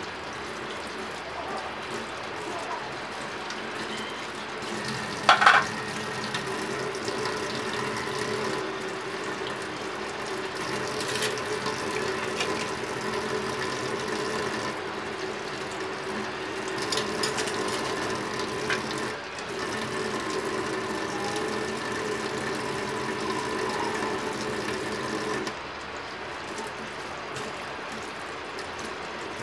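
Tap water running into a stainless steel sink while dishes are washed by hand, with clinks of crockery; the loudest is a sharp clatter about five seconds in. A steady hum runs underneath and cuts off near the end.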